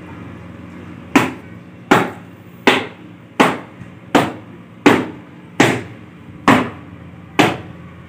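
Wooden stick beating a wet cotton khes (blanket) laid on a tiled floor to knock the dirt out of it: nine steady strikes, a little under one a second, starting about a second in.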